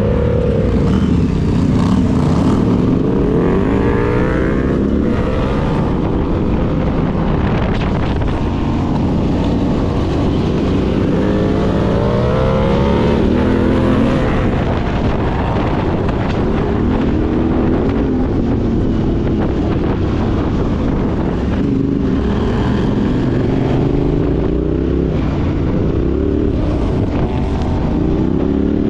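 Yamaha Ténéré 700's parallel-twin engine running under way on an off-road ride, its pitch rising and falling again and again as the throttle opens and closes and the gears change.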